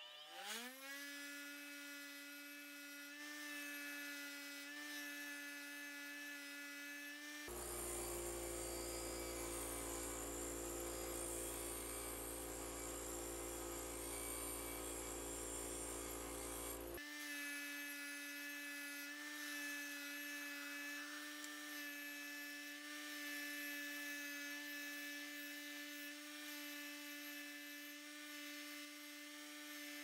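Bench grinder motor spinning up to speed just at the start, then running with a steady whine. A metal lock cam held in locking pliers is ground against the wheel, adding a gritty grinding noise; the sound is loudest, with a low rumble, from about 8 to 17 seconds in.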